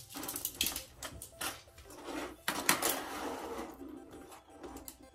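Magformers plastic magnetic tiles clicking as they snap together and are set down on a table: a run of irregular sharp clicks that thins out near the end.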